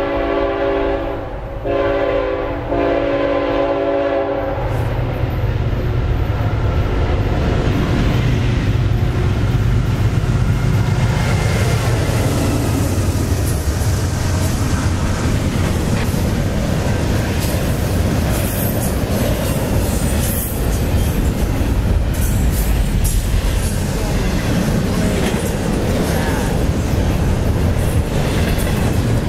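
A CSX freight train's horn blows in blasts broken by short gaps and stops about four seconds in. Then the intermodal train passes close by with a loud, steady rumble, its wheels clicking and rattling over the rails under the double-stack container cars.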